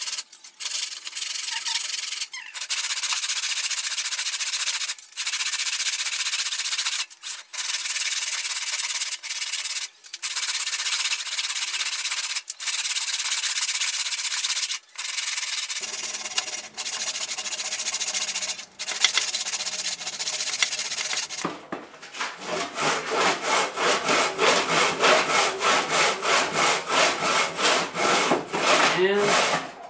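A freshly sharpened four-teeth-per-inch Peugeot rip saw ripping along the grain of thick mahogany, rasping through the wood. It starts with long strokes, broken by short pauses every two to three seconds, and about two-thirds of the way through it switches to quick short strokes, several a second.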